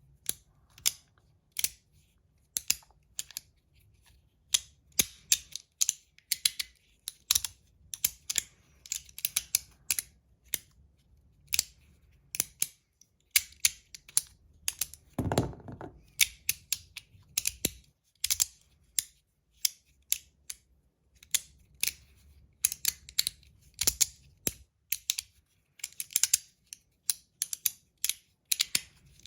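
Flat Verk magnetic slider fidget being slid and snapped by hand: crisp, sharp clicks in quick clusters as its magnets catch. A duller, longer knock about halfway through.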